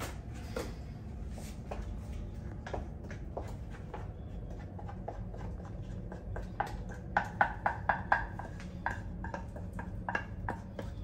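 Wooden spoon scraping and knocking cooked cream of rice out of a saucepan into a plastic container: scattered scrapes and light clicks, then a quick run of sharper knocks, about four a second, a little past the middle. A steady low hum runs underneath.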